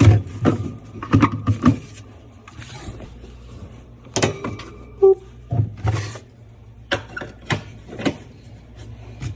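Irregular knocks and clunks, a cluster in the first two seconds and more from about four seconds on, over a steady low hum.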